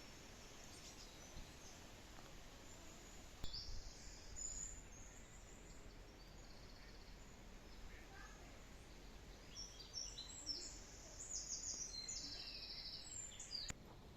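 Faint songbird song in woodland: high chirps begin about three and a half seconds in, and quick repeated trills grow busier toward the end.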